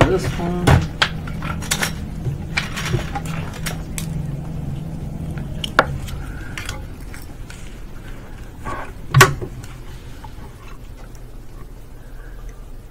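Glass microscope slides clicking and clinking as they are handled and a new slide is set on the microscope stage. A quick run of sharp clicks comes at the start, then scattered single knocks, the loudest about nine seconds in.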